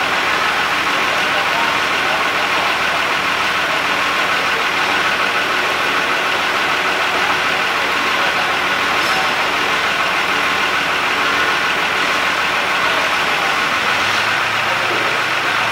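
A truck-mounted crane's engine running steadily at an even pitch and loudness.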